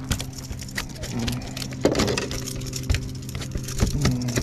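A motor hums steadily at one pitch, with scattered sharp clicks and knocks of fishing tackle being handled and a louder knock about two seconds in.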